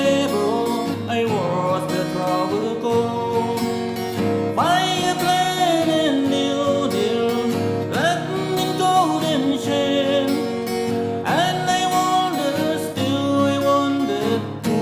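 Music: acoustic guitar accompanying a sung melody that comes in phrases.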